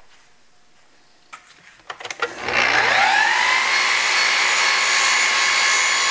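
Festool Kapex sliding miter saw switched on: a couple of clicks, then the motor and blade spin up about two seconds in with a rising whine and settle into a loud, steady high-pitched run.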